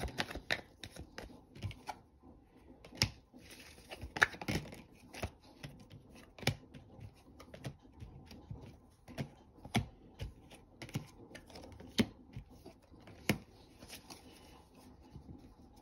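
Tarot cards being shuffled and handled by hand: irregular sharp clicks and snaps as the cards are cut and flicked against each other.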